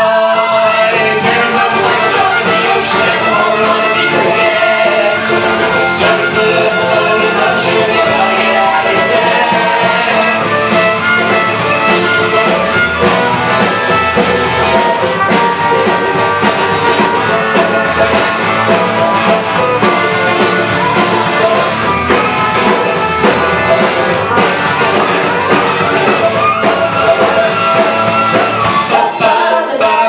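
A live band playing a song: women singing over strummed acoustic guitars and other instruments, with a steady beat.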